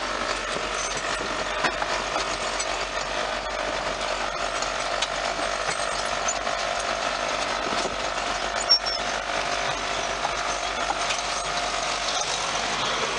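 Farm tractor's diesel engine running steadily, heard from the cab with the windows open, with faint mechanical rattling and one sharp click a little over halfway through.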